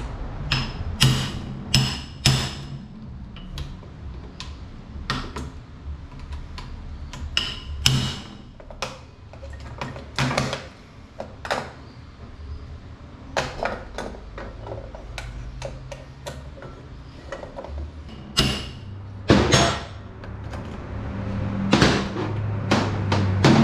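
Hammer blows on a hand impact driver, loosening the Torx screws of an oil pump's rear cover held in a bench vise. The sharp metal strikes come at uneven intervals, a dozen or more, over a low steady hum.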